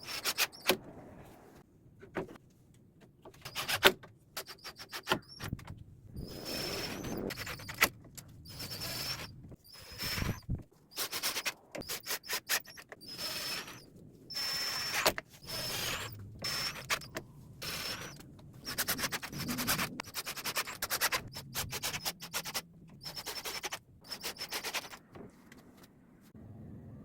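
Hand work on wood: repeated scraping strokes in short, uneven bursts, some with a rapid rasping texture, with gaps between them.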